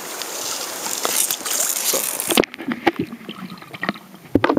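Lake water sloshing and splashing close to the microphone as a perch is lowered back in by hand. About two and a half seconds in, the sound abruptly turns dull and muffled as the microphone goes underwater, with a few knocks and clicks.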